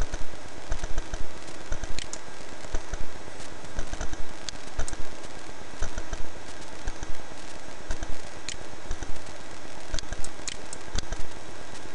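Irregular clicks and taps from a computer mouse and keyboard, a few a second, some with a low thump, over a steady low hum and hiss.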